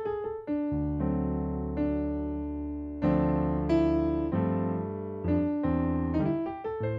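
Solo jazz piano on an electronic keyboard with a piano sound: melody notes over full chords and bass notes, a new chord struck about every second and left to ring and fade.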